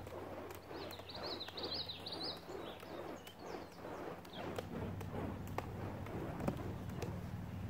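Fire-juggling torches being passed and caught, their handles knocking into hands in a loose rhythm of faint sharp clicks. A bird chirps several times about a second in.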